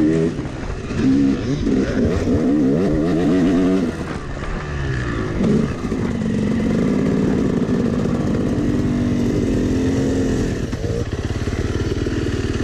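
Yamaha dirt bike engine revving hard through the gears on a sand trail, heard from the rider's seat, its pitch climbing and falling with each shift. The engine eases off about four seconds in, holds high revs for several seconds, then drops back near the end as the bike slows to a stop.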